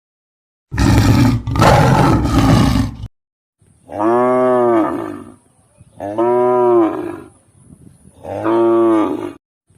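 A cow mooing three times, each moo a drawn-out call about a second long that rises and falls in pitch. Before the moos, in the first few seconds, comes a harsh, noisy roar-like animal call in two parts.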